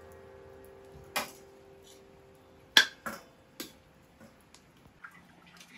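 A metal spoon clinking and knocking against a pot and steel plates while cooked rice is served: a handful of sharp separate clinks, the loudest about three seconds in.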